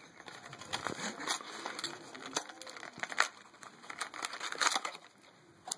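Plastic and foil packaging crinkling and crackling as a trading-card box and its booster packs are torn open, in irregular crackles and rustles.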